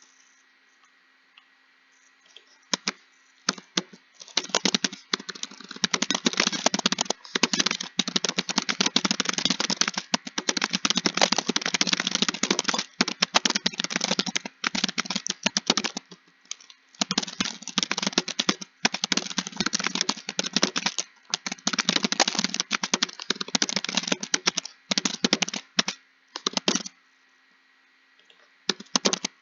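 Fast typing on a computer keyboard: dense runs of key clicks with short pauses between bursts, starting about three seconds in and stopping a couple of seconds before the end.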